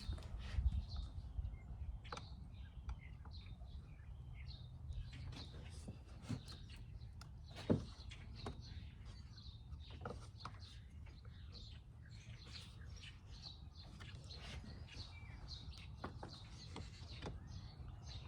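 Faint birds chirping, many short high chirps scattered throughout. Over a low steady background rumble there are a few light clicks and knocks, the loudest about two thirds of the way through.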